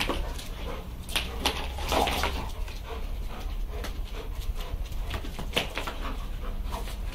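Two pit bull–cross dogs playing rough and chasing on paving tiles: scattered sharp clicks and scuffles of paws on the tiles, busiest about two seconds in.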